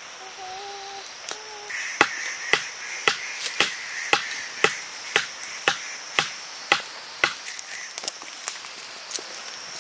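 Knife chopping on a cutting board: a run of even cuts about two a second, then a few lighter, irregular taps near the end.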